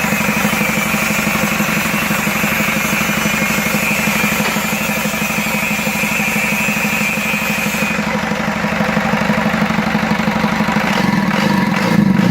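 Mitsubishi 4D32 four-cylinder diesel engine running steadily at idle, with an even pulsing beat. It gets louder briefly near the end.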